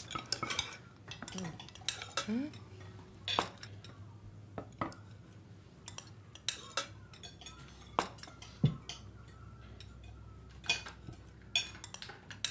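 Knives and forks clinking and scraping on china plates as several people eat, in scattered irregular clinks.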